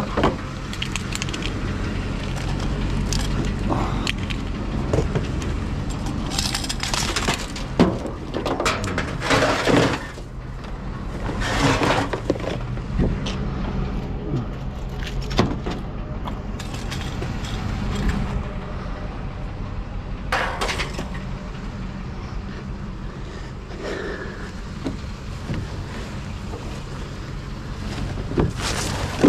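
Scattered clanks, bangs and crashes of scrap metal being handled, over a vehicle engine running steadily.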